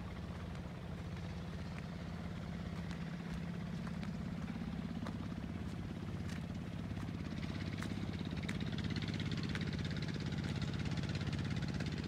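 An engine running steadily, a low even hum that grows louder from about four seconds in, with faint short bird chirps over it.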